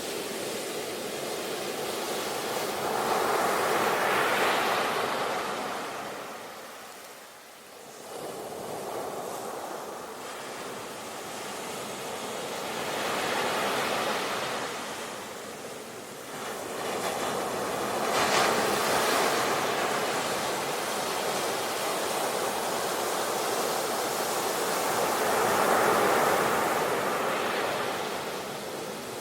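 Sea waves breaking and washing up the shore in slow surges, each swelling to a rush and fading, about four times.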